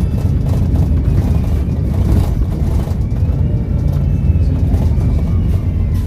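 Volvo B7RLE bus's diesel engine running with a steady low rumble, a faint turbo whistle gliding in pitch above it.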